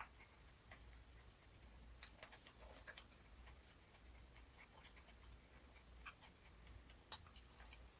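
Near silence: a low steady room hum with a few faint, scattered clicks.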